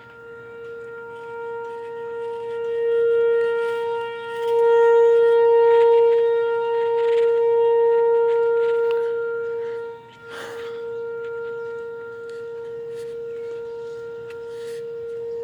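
Whelen Vortex R4 outdoor warning siren sounding a steady tone for a tornado warning. It swells louder and softer as its head rotates, dips sharply about ten seconds in, then holds steady.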